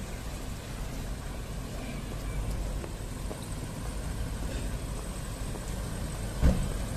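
Large Toyota Land Cruiser SUV rolling slowly on a paved driveway, its engine a low steady rumble. A single short thump near the end.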